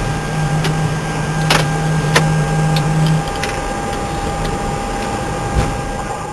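Airbus A319 flight-deck noise after landing: a steady rushing roar with several faint whining tones and a low hum that stops about three seconds in. Sharp clicks of overhead-panel switches being flipped come every second or so, one loud click about a second and a half in.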